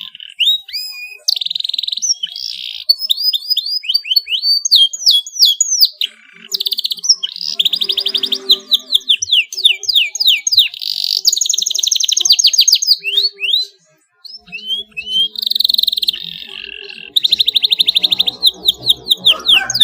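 Canary singing a long song of fast trills and quickly repeated sweeping notes, with a short break about fourteen seconds in.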